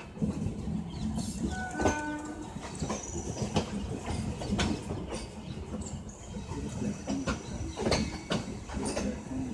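Rajdhani Express train running on the track: a steady low rumble with irregular sharp clicks of wheels crossing rail joints. A brief tone sounds about two seconds in.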